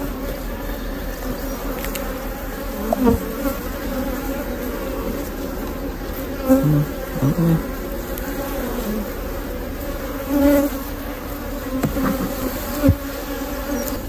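Honeybees of a queenless colony buzzing around an open hive as a steady hum, with single bees buzzing briefly louder as they fly close past. A couple of light knocks from a metal hive tool on the wooden frame, about three seconds in and near the end.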